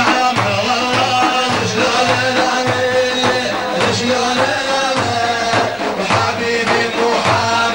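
Sufi devotional song (madih) in Middle Eastern style: a man sings a melodic line over a steady, repeating drum beat.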